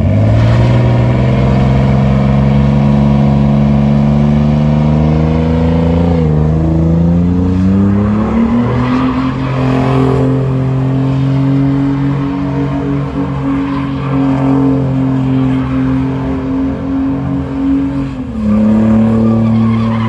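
Pickup truck engine held at high revs during a burnout, its rear tyres spinning and squealing on the pavement. The engine note climbs at the start, dips and climbs again about six to eight seconds in, holds high, then drops a little near the end.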